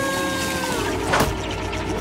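Cartoon machine sound effects from a tree-shaker's clamp gripping a tree trunk: a held tone fades out, then a single metallic clank about a second in, with a low rumble starting underneath.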